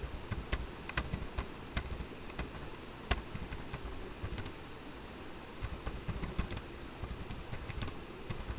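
Typing on a computer keyboard: irregular key clicks in quick runs, with a pause of about a second midway.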